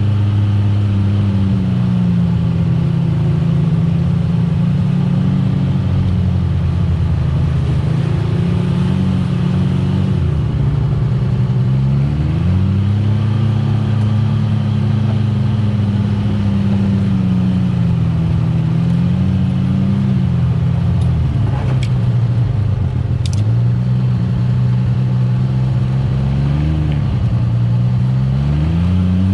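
Side-by-side UTV engine running under varying throttle, its pitch rising and falling repeatedly as it speeds up and slows. A couple of sharp clicks sound about three-quarters through.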